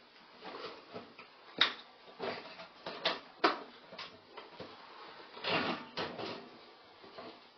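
Metal clicks, knocks and scraping as a mounting bracket is worked into a bathroom exhaust fan's sheet-metal housing by hand. The sharpest knocks come about a second and a half in and around three seconds in, with a longer scrape near six seconds.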